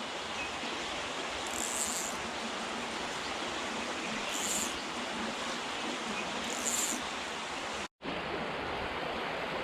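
Steady rush of flowing creek water, with three short high chirps a couple of seconds apart.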